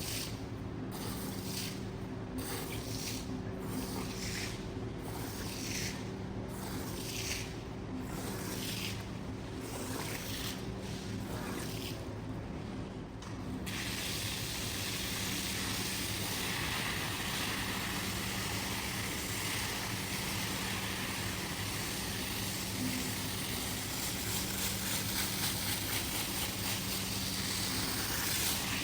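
Water spraying under pressure over a steady motor hum. For the first half the spray comes in rhythmic strokes of about one a second, then it runs continuously.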